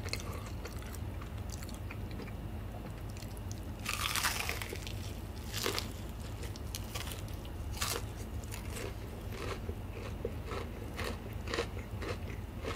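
Biting into and chewing a crispy Bburinkle fried chicken drumstick: a bigger crunch of the coating about four seconds in, then a run of smaller crunches and chewing clicks.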